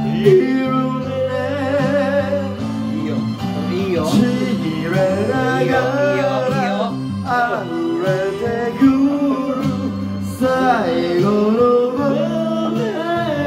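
A man singing a Japanese rock ballad into a karaoke microphone over the song's backing track with guitar, holding long notes with vibrato.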